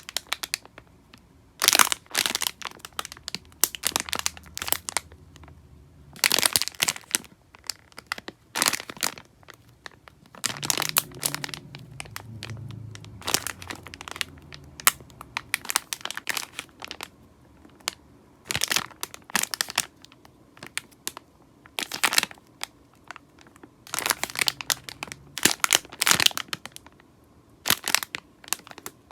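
Crinkly packaging around a squishy foam toy being squeezed and handled, making irregular bursts of sharp crackling with short pauses between them.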